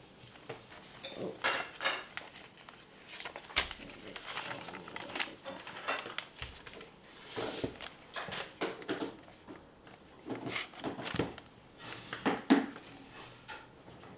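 A sheet of paper being handled and creased by hand while a paper airplane is folded: irregular rustles and crinkles with a few small taps.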